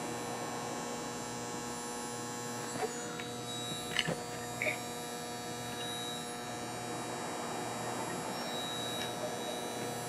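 A steady low hum made of several even tones, with a few faint light clicks about three to five seconds in.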